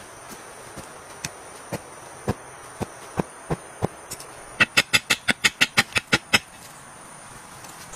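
Sharp knocks of a stick or tool striking the forest floor while digging: single strokes about every half second, then, a little past halfway, a faster, louder run of about a dozen quick strokes. A steady high insect whine runs underneath.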